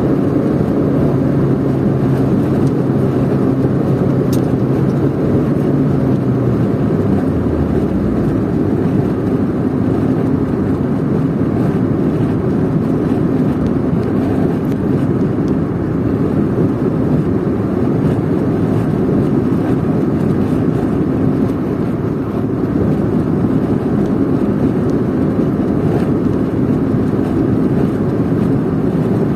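A car driving at steady speed, heard from inside the cabin: a steady rush of tyre and road noise with a low engine hum. About seven seconds in, a low drone stops and falls in pitch.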